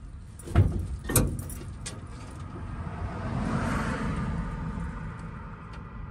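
Two sharp knocks about half a second apart near the start, then a passing car's engine and tyre noise swelling and fading away.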